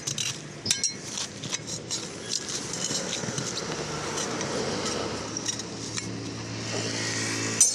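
Steel tyre lever clinking and scraping against a Mahindra Bolero Camper's steel wheel rim as the tyre bead is pried off by hand. Repeated sharp metal clicks run throughout, the sharpest near the end.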